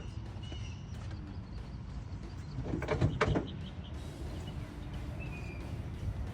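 A quick run of clunks and knocks, loudest about three seconds in, over a steady low outdoor rumble, with a couple of faint bird chirps.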